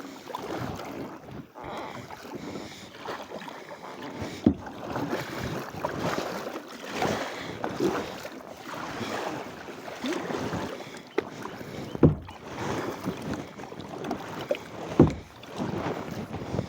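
Kayak paddle strokes dipping and swishing through the water in an uneven rhythm, with a few sharp knocks.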